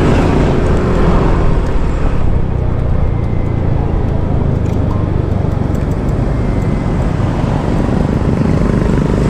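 Steady low rumble of road-vehicle noise, the sound of a moving vehicle on the road.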